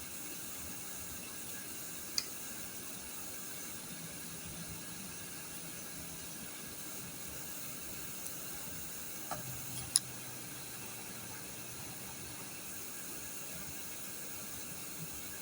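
Steady background hiss, with a sharp click about two seconds in and a louder one about ten seconds in, and a few faint ticks just before it.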